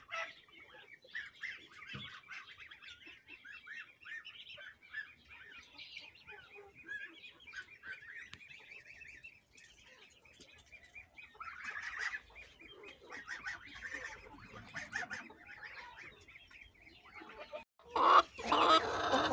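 Ducklings peeping in a chorus of short, rapid high cheeps, with geese calling now and then. Near the end, chickens break in loudly with clucking.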